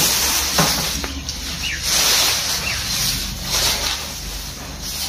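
Armfuls of fresh-cut green grass stalks rustling and swishing as they are dragged off a pile, in a few swells, with a few faint bird chirps.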